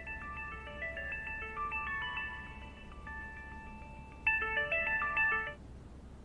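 Mobile phone ringing with a melodic ringtone of short stepped notes, signalling an incoming call. The tune pauses about three seconds in, then comes back louder for a second phrase that stops shortly before the phone is answered.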